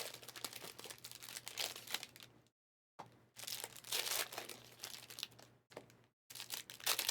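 Foil trading-card pack wrappers crinkling and tearing as Panini Select packs are handled and opened, an irregular rustle with two brief drops to dead silence.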